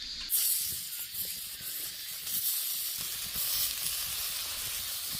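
Sizzling on a hot iron griddle plate. It starts suddenly about a third of a second in and keeps going as a dense hiss.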